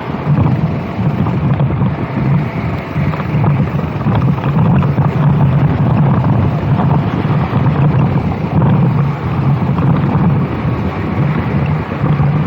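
Racing kart engine running hard at speed, with wind buffeting the microphone.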